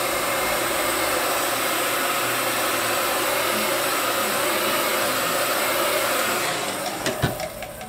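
Handheld hot-air heat gun blowing steadily as it heats a vinyl decal, fading away about six and a half seconds in, followed by a few light clicks.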